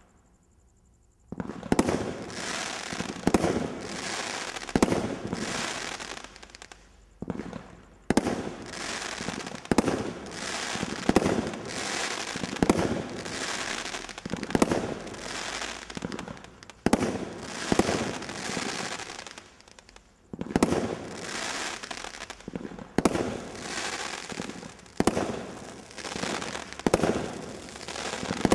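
Brothers Pyrotechnics Screeching Skyrider, a 36-shot combination Roman candle firework cake, firing shot after shot, about one a second. Each shot is a sharp bang that trails off over about a second. Firing starts about a second and a half in, with brief lulls around 7 and 20 seconds.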